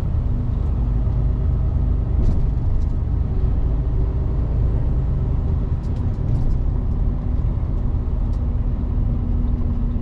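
Truck's diesel engine running steadily while driving, heard from inside the cab: a continuous low rumble with a steady engine tone and a few faint clicks.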